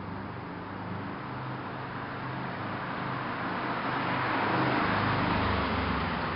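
2011 Subaru STI with a Harman Motive cat-back exhaust and stock downpipe driving past, its turbocharged flat-four getting steadily louder as it approaches. It is loudest about four to five seconds in, with a deeper low end as it passes.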